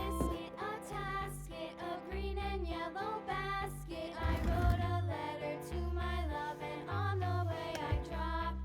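Background music: a song with a sung, wavering melody over a bass line that steps from note to note.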